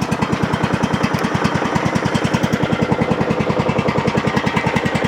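Snapper LT200 lawn tractor engine idling low and steady with an even, rapid pulse, running smoothly on an unadjusted carburettor.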